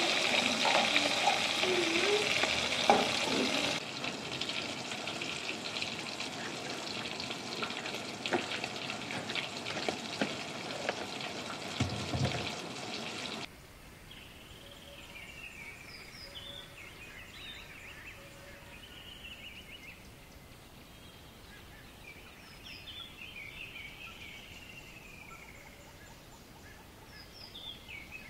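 Fish frying in hot oil, a dense sizzle full of small crackles, which cuts off abruptly about halfway through. After that, quieter outdoor background with a bird chirping now and then.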